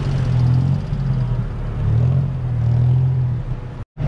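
Cross-river ferry boat's engine running with a steady low rumble. The sound drops out for a moment near the end.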